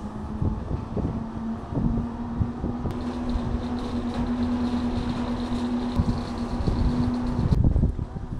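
Ski lift ride: a steady mechanical hum over a low rumble. The hum stops abruptly about seven and a half seconds in, and wind-like noise follows.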